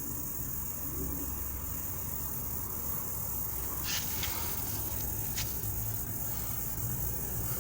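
An unidentified insect making a steady, high-pitched hissing buzz, with a low rumble underneath. A few sharp clicks come about four to five and a half seconds in.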